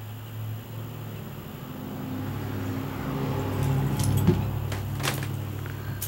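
A motor running with a steady low hum that swells louder over a few seconds, then a few sharp clicks and jingles about four to five seconds in.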